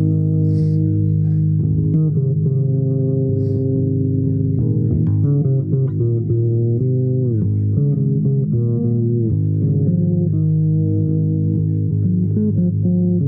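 Solo improvised music on a low-pitched plucked string instrument: held, overlapping notes with several sliding pitch changes.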